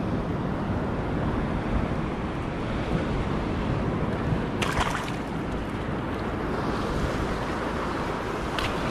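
Sea surf washing over a rocky shore, with wind buffeting the microphone, a steady rushing noise. A brief sharp rattle of clicks comes about halfway through and another click near the end.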